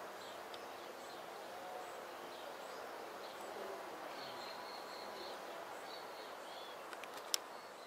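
Steady outdoor background hiss with faint, high bird chirps scattered through it, and a single sharp click about seven seconds in.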